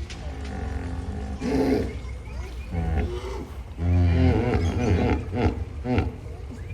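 Hippopotamus calling: a series of deep, pitched calls in quick succession, the longest and loudest about four seconds in.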